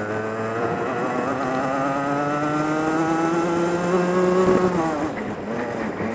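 Racing kart engine heard on board, accelerating with its pitch rising steadily for about four seconds, then dropping sharply about five seconds in as the throttle is lifted.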